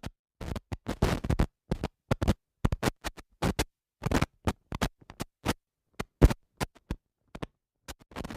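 A choppy string of short, scratchy noise bursts, roughly three a second at an uneven pace, each cut off to dead silence, like an edited record-scratch or glitch sound effect; the loudest burst comes about six seconds in.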